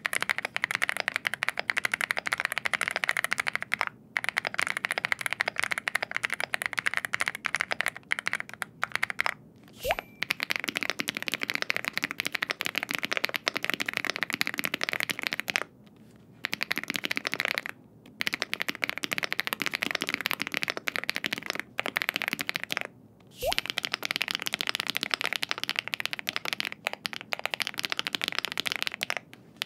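Fast, continuous typing on mechanical keyboards, a dense run of key clacks with short pauses: first a VARO V87A with Linear Purple switches, then about ten seconds in an MCHOSE GX87 with KTT Fog Blue switches, and near the end an MCHOSE GX87 with HMX Hyacinth V2U switches.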